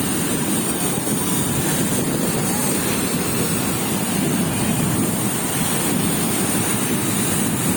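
Sea surf washing and breaking on the beach, a steady rushing noise, with wind buffeting the microphone.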